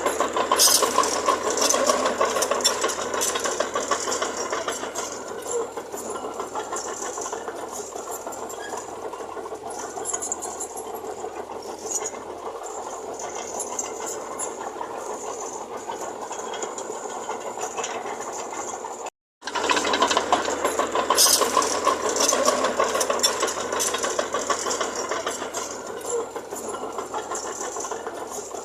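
Heavy earthmoving machinery at work: a diesel engine running with a dense, steady metallic rattle and clatter. It cuts off abruptly about two-thirds of the way through, then starts again louder.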